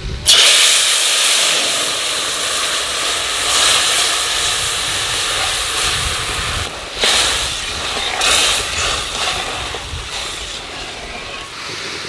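Tamarind water hitting hot oil in a metal kadai, setting off a sudden loud hiss and sizzle that carries on as the liquid boils up. It breaks off briefly about seven seconds in, flares again, then slowly dies down.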